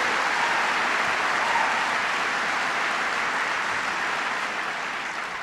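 Large audience applauding: a steady wash of clapping that begins to die down near the end.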